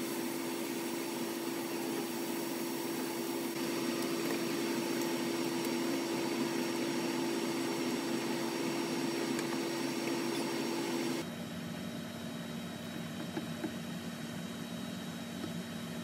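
Ham pieces frying in a nonstick pan, with a fine sizzle over a steady hum. About eleven seconds in, the sound cuts abruptly to a quieter, lower hum.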